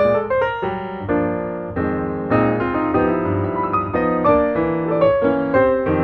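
Background piano music: a melody of quick notes over held chords.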